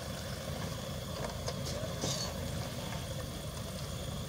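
A car engine idling close by: a steady low rumble, with a few faint ticks about halfway through.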